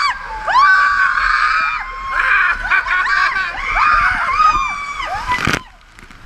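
Several riders on a raft water slide screaming and shrieking together, many short high rising-and-falling cries overlapping; the screams stop abruptly a little after five seconds in.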